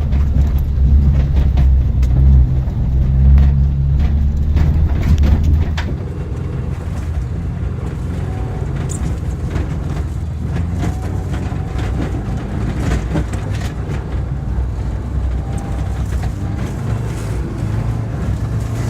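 Rallycross car's engine running as the car drives. It is a steady, loud engine note for about six seconds, then turns quieter and rougher with scattered clicks and knocks.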